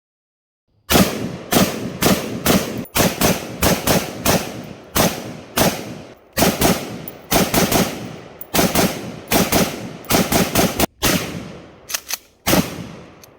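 A rapid string of gunshots, about two to three a second, with some fired in quick succession. Each shot has a ringing tail that dies away before the next.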